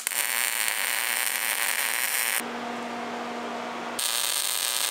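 Wire-feed (MIG) welder laying tack welds on steel flat bar: the arc's crackling hiss runs for about two and a half seconds, stops for about a second and a half, leaving a low hum, then starts again near the end.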